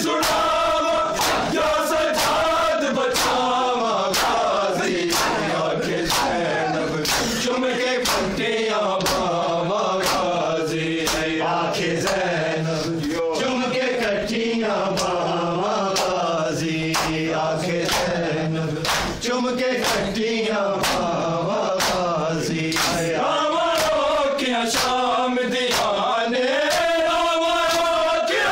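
A group of men chanting a noha in unison, with open-hand strikes on bare chests (matam) landing together in a steady beat about once a second.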